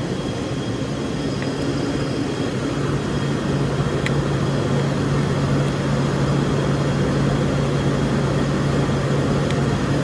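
Steady drone of a running machine tool and its oil pump unit, with a steady low hum that grows a little louder a few seconds in.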